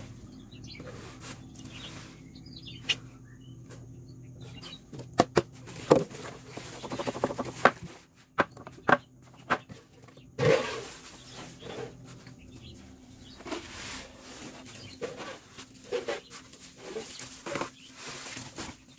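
A plastic scoop scraping up live mealworms from a wooden tray and pouring them into a plastic bucket: dry rustling and pattering, with scattered sharp knocks of plastic against wood, mostly around the middle.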